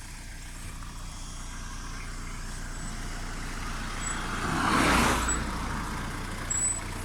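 Steady engine and road noise of a car travelling on a highway, with another vehicle passing close by about five seconds in, its rush of noise swelling and fading within a couple of seconds.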